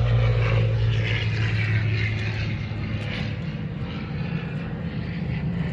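Piston-engined propeller aircraft droning as they fly past, with a falling engine pitch early on as one passes.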